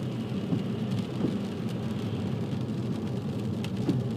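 Steady low rumble of a car's engine and tyres on a wet road, heard from inside the cabin, with a windscreen wiper sweeping across the glass near the end.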